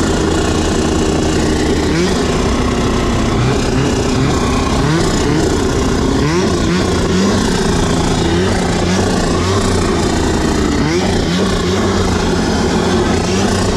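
Snowmobile engine running under throttle, its pitch holding steady and then rising and falling again several times as the rider works the throttle, over a steady rushing noise.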